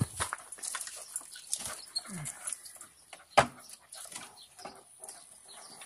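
Scattered knocks, scuffs and rustling from someone moving around inside a quail pen, with one sharp knock about three and a half seconds in.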